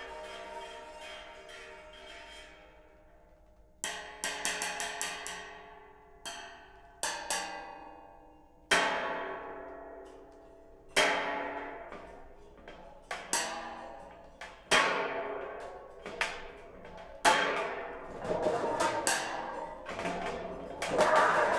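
Curved thin sheets of a home-made sound sculpture struck with a thin stick in quick clusters of taps. Each cluster rings on with pitched overtones and dies away over a second or two. The strikes come closer together near the end.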